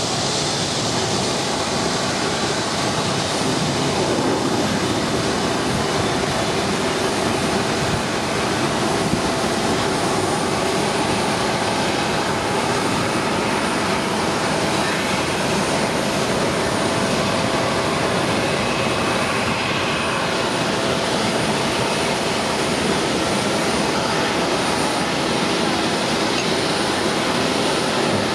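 Boeing 757-200 airliner taxiing, its twin jet engines running at a steady low power, heard as an even rushing noise with faint thin whining tones on top.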